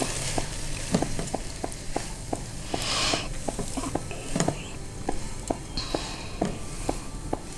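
A spatula stirring cooked radish-leaf and moong dal sabzi in a nonstick pan, with light irregular taps and scrapes of the spatula against the pan, two or three a second.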